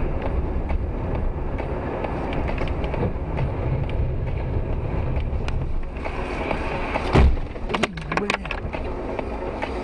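Steady low rumble of a car's road and engine noise, broken about seven seconds in by one sudden loud bang and a few sharp clacks just after it.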